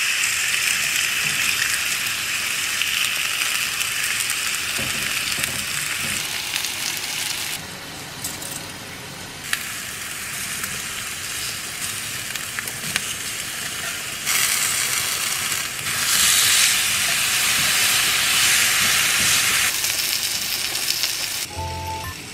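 Chicken breast and vegetables sizzling on a hot cast-iron grill pan, a steady hiss. It is louder at first, drops back for several seconds in the middle, and rises again about two thirds of the way through.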